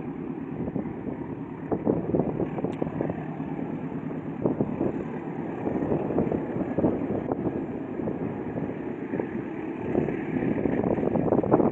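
Wind buffeting the microphone in gusts, over the distant running of an approaching CC206 diesel-electric locomotive.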